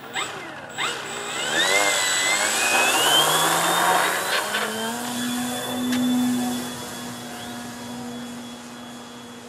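Electric motor and propeller of a Precision Aerobatics Extra 260 RC aerobatic plane throttling up for takeoff: a whine rising steeply in pitch over a second or two, then holding steady and fading as the plane climbs away.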